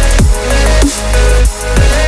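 Electronic music with a heavy bass line, with a falling bass swoop twice.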